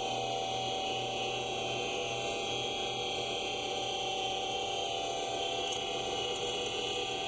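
7x16 Microlux variable-speed mini lathe running with a steady motor whine of several held tones while a tailstock drill peck-drills into the spinning workpiece.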